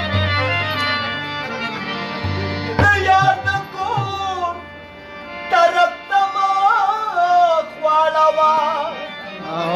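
Pashto ghazal performed live: a male singer with two harmoniums and tabla. Harmonium tones and deep tabla strokes come first; the voice enters about three seconds in with long, ornamented held notes.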